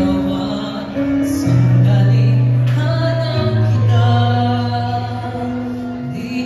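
A male vocalist singing live into a handheld microphone through a PA over sustained instrumental accompaniment, holding long notes.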